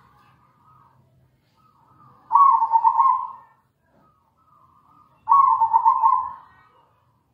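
Zebra dove (perkutut) singing: two loud phrases of rapid, pulsing coos, each about a second long and about three seconds apart, with fainter coos between them.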